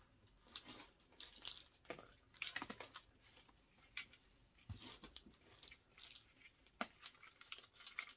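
Faint, irregular rustling and crinkling as a potted houseplant's leaves are handled.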